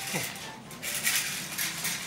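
Short, irregular scraping and clattering from hand work on hard candy at a metal candy-making table, starting about a second in.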